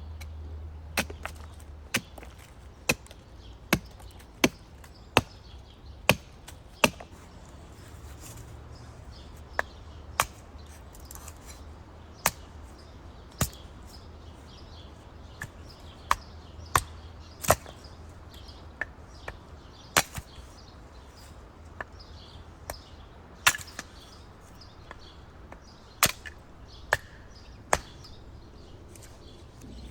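Wood being chopped with a hand tool: sharp single blows, about one a second through the first seven seconds, then more scattered and uneven for the rest.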